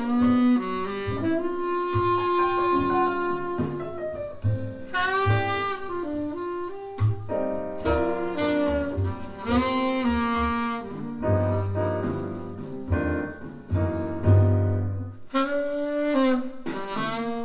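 Jazz quartet recording played through Bowers & Wilkins 706 S3 speakers: a tenor saxophone melody over piano and walking double bass.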